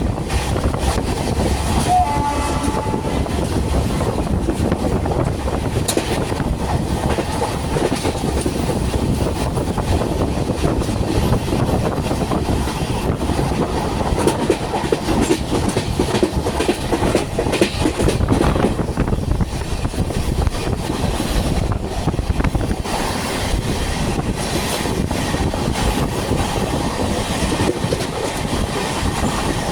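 Express train running at speed: a loud, steady rumble of wheels on rail with clickety-clack, and a short horn note about two seconds in.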